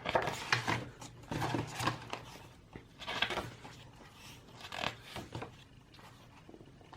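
Pages of a glossy album photobook being turned one after another, several paper rustles and soft handling sounds spaced a second or two apart that grow fainter and sparser near the end.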